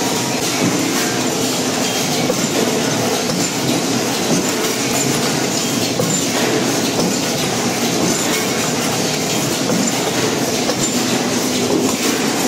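Automatic metal-spinning rolling machine with robot manipulator running: a loud, steady mechanical noise with many small clicks.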